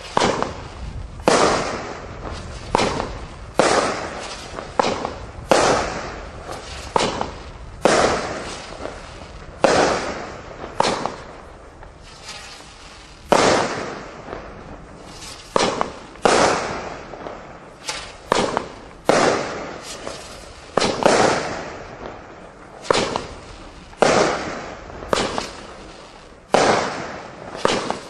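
Shanghai Cyclones 16-shot firework cake firing its shots. Sharp bangs come about once a second, each dying away quickly, with a brief pause a little before halfway.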